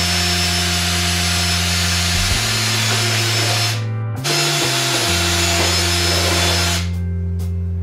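Power drill running twice: about four seconds, a brief pause, then about two and a half seconds more, stopping shortly before the end. Background music with steady low notes plays under it.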